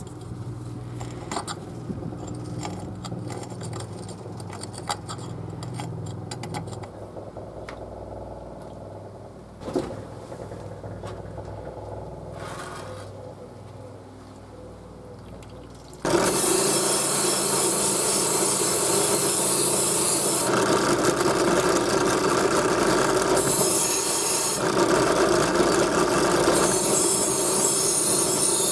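Belt grinder running with a steady hum and light rubbing contact. About sixteen seconds in it turns much louder: a harsh sanding hiss as the cleaver's wooden handle is pressed against the abrasive belt, its brightness rising and dropping several times as the pressure changes.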